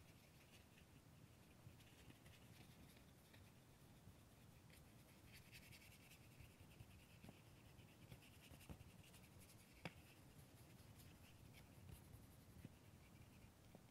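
Near silence, with the faint scratch of a paintbrush stroking paint onto paper and a small click about ten seconds in.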